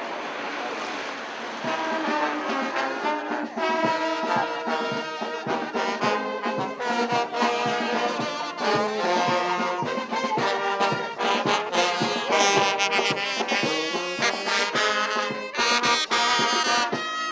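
Brass band music, with trombones and trumpets playing a lively tune of many short notes, coming in about two seconds in.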